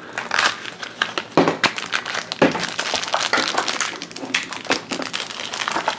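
Hands opening a small cardboard toy blind-pack box and crinkling open the foil-like blind bag inside. It is a dense, irregular run of crackles and rustles.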